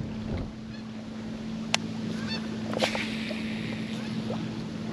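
A boat motor running with a steady low hum, with a few sharp clicks and knocks over it, one near the middle and one near the end.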